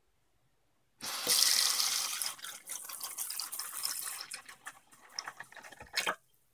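Kitchen tap water running into a small bowl that holds a sink basket strainer plug, filling it with water over vinegar. The water starts about a second in and is loudest at first, then softer as the bowl fills. A short knock comes near the end.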